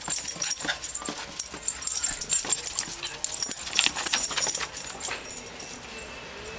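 Two small dogs play-wrestling and chasing each other: rapid scuffling and scratching with occasional short whines, quieter near the end.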